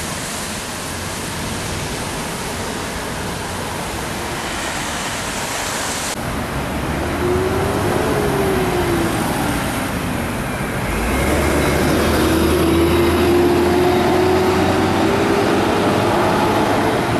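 Road traffic: an even hiss of tyres on a wet road, then, after a cut about six seconds in, truck and car engines passing, with a droning note that rises and falls in pitch and a low rumble that comes in about halfway through.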